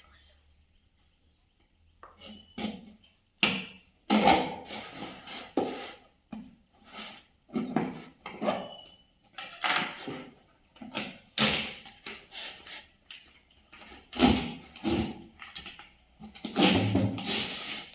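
A box and its packaging being handled and opened by hand: a run of irregular scrapes, rustles and knocks starting about two seconds in.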